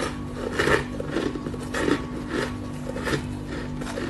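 Close-up chewing of a mouthful of frozen shaved ice: a run of crisp crunches at a steady pace, a bit more than one a second.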